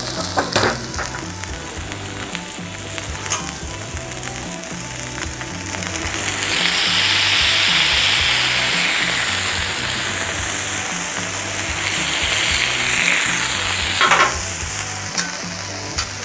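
80/20 ground-beef smash-burger patties and sliced onions sizzling on the hot flat-top griddle of a Cuisinart 360 cooking center. The sizzle swells louder twice, from about six seconds in, as a patty is pressed flat with two spatulas, and there are a few sharp clicks of metal spatula on the griddle.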